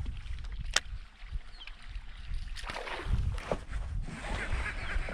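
Small waves lapping against a canoe hull, with wind rumbling on the microphone and one sharp click under a second in. Near the end a fast, even chatter begins.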